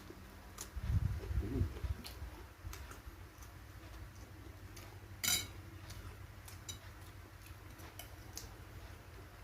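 Eating sounds close to the microphone: low chewing noise about a second in, light clicks of cutlery on a plate throughout, and one sharper click about five seconds in.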